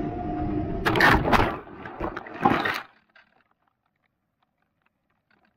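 Onboard audio of a foam RC plane touching down: wind noise and a faint motor hum, then loud thumps and scraping about a second in and again near 2.5 s as it hits the ground and skids. The sound cuts off suddenly.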